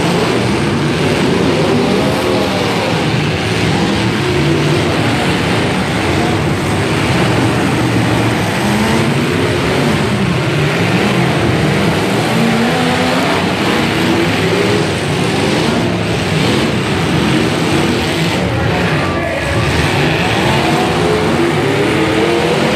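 Several demolition derby cars' engines revving and running at once, a loud continuous din of many pitches rising and falling.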